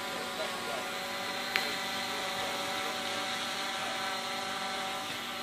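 Quadcopter's electric motors and propellers hovering, a steady buzzing whine of several tones at once. A single sharp click about a second and a half in.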